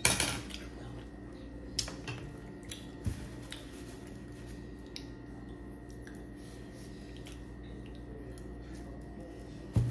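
A metal spoon clinking and tapping against plates and a glass bowl at a meal table, with a few light clinks in the first five seconds. The rest is a faint steady room hum, broken by one louder knock near the end.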